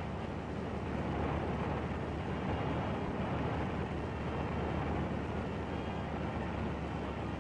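Steady drone of a Kawanishi H8K flying boat's four radial engines in flight, heard as an even, hissy rumble on an old newsreel soundtrack.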